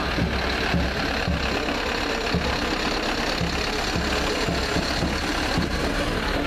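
Diesel engine of a Mercedes-Benz Vario fire truck running steadily as the truck drives past close by.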